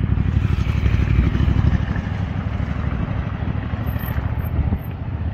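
Passing road traffic: car and motorcycle engines running, a steady low rumble that is a little louder in the first couple of seconds.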